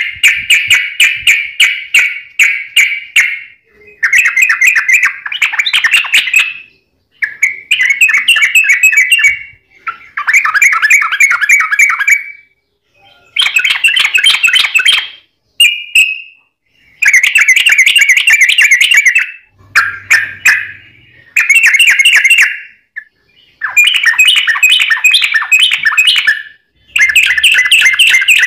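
Trucuk (yellow-vented bulbul) singing a loud, rapid, bubbling song in a run of phrases, each about two to three seconds long, with short pauses between them. The song is worked with straw-headed bulbul (cucak rowo) style variations.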